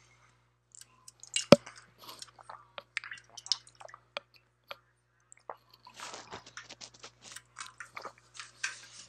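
Aluminium drink can being handled and crinkled in the hand: a sharp click about one and a half seconds in, then irregular crackles and clicks that grow denser in the last few seconds.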